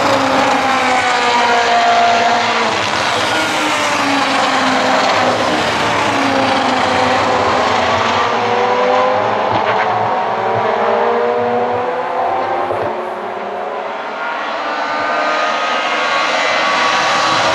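Peugeot 207 S2000 rally cars' naturally aspirated 2-litre four-cylinder engines running hard on a race track, their pitch climbing and falling again and again as the cars accelerate, shift and pass. The sound eases briefly about twelve seconds in, then builds again.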